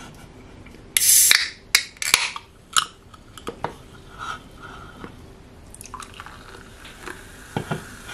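Aluminium can of sparkling water cracked open about a second in: a sharp pop and short hiss of escaping gas, followed by a few sharp clicks of the tab, then faint scattered ticks.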